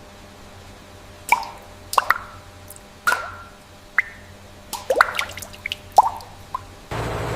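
Water drops falling and plopping, about a dozen irregular drips, each a short pitched plink. Near the end the sound cuts abruptly to a louder steady hum.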